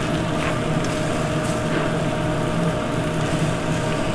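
Steady rumble and hum of a commercial kitchen's lit gas range. A few faint clicks come from metal tongs against an aluminium sauté pan of wilting spinach.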